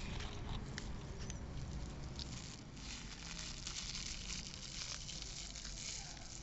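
Chloride powder being poured into a plastic bottle: a faint pattering hiss of grains falling against the plastic, with scattered small ticks, growing denser midway.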